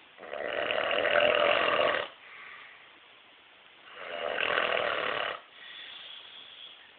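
A sleeping man snoring heavily: two loud rasping snores, each about a second and a half long, each followed by a softer breath.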